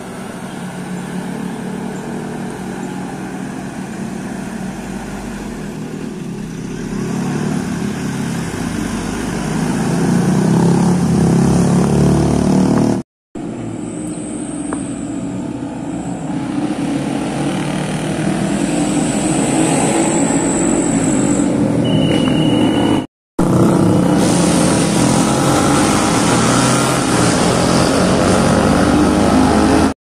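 Diesel bus engines running as the buses come round a bend, each growing louder as it nears. The sound breaks off twice, about 13 and 23 seconds in, and picks up on another bus.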